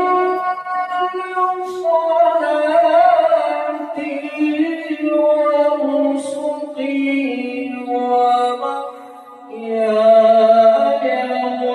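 Male Quran reciter (qari) chanting in melodic tilawah style, drawing out long ornamented notes. He breaks off briefly about nine seconds in, then comes back in louder.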